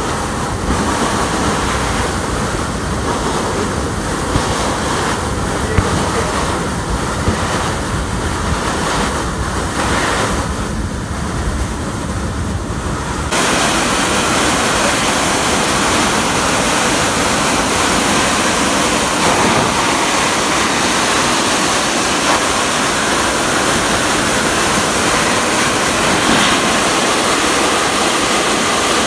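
Steady loud rushing of air blowing up out of vent holes in a dam's crest road, with wind buffeting the microphone. About 13 s in the low rumble drops away abruptly and the rush turns brighter and hissier.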